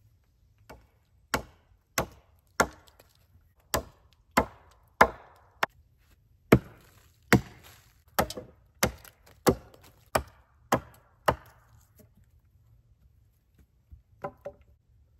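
Wood being chopped by hand: about sixteen steady strikes into a dead cedar log, roughly one every two-thirds of a second, each a sharp crack, then they stop and a few lighter knocks come near the end.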